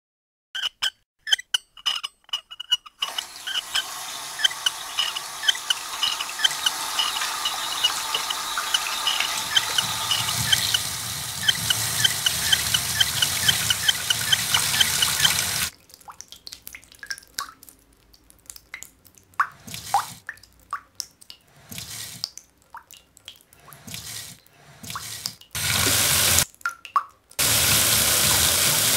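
Water running from a bathtub tap into the tub, with a quick, regular plinking of drops over it. The flow cuts off suddenly about halfway, leaving scattered drips and splashes, and runs again near the end.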